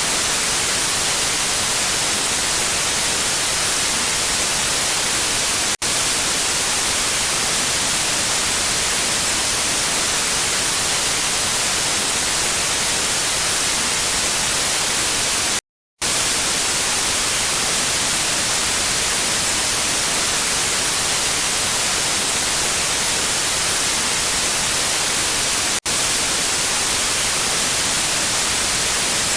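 Steady TV/radio static hiss, brightest in the high end, that cuts out to silence for a split second about halfway through.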